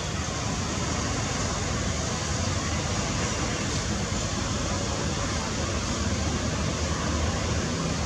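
A steady rushing noise with a low rumble underneath, unchanging and without distinct events.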